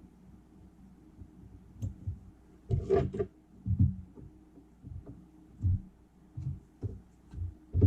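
Handling noise at a fly-tying desk: soft knocks and clicks of tools and a fly-tying vise being handled, with a quick cluster of sharper knocks about three seconds in and single low knocks every second or so after.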